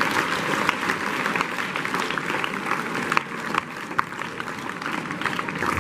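Large audience of schoolchildren applauding: many hands clapping at once in a dense, steady stream of claps.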